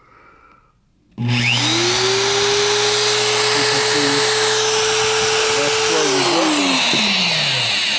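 Electric motor switched on about a second in: a whine rises quickly and holds steady over a loud rushing noise and a low hum, then slides down in pitch near the end.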